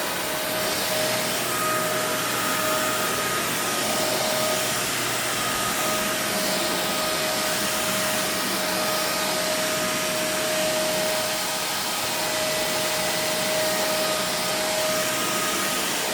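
Kenmore Intuition upright vacuum cleaner, with a direct-drive brush roll, running steadily on carpet. Its motor gives a steady whine over the rush of suction.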